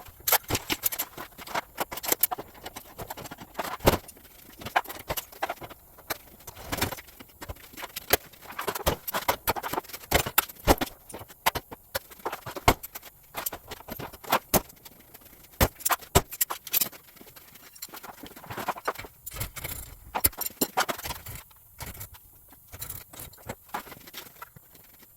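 Irregular metallic clinks, clicks and knocks of hand tools and garage door hardware being handled during a cable replacement.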